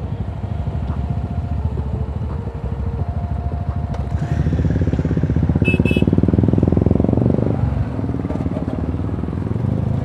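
Royal Enfield Himalayan's single-cylinder engine idling with a steady low thump. It gets louder for a few seconds in the middle, then settles back to idle. A short double beep comes about six seconds in.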